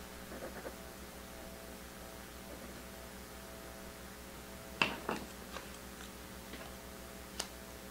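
Low steady electrical hum with a few faint clicks and light rustles from trading cards being handled, clustered about five seconds in and once more near the end.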